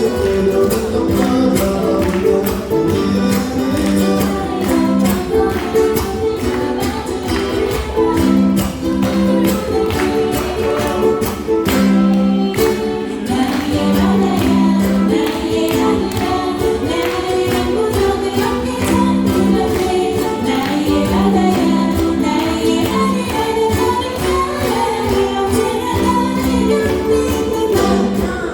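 Ukulele ensemble strumming a song in a steady rhythm, with singing over it.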